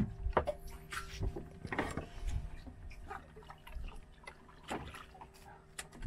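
Sea water lapping and splashing against the side of a small wooden fishing boat, with scattered light knocks on the hull and a faint steady hum underneath.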